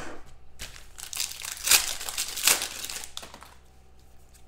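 Foil wrapper of a 2017 Panini Prestige football card pack being torn open and crumpled by hand: a busy crinkling rustle, loudest a little under two seconds in and again about two and a half seconds in, dying away after about three and a half seconds.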